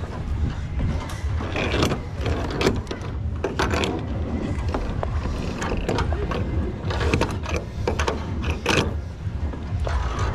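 Footsteps climbing wooden stairs: irregular knocks and thuds on the treads, with clicking and rattling from climbing safety gear, over a steady low rumble.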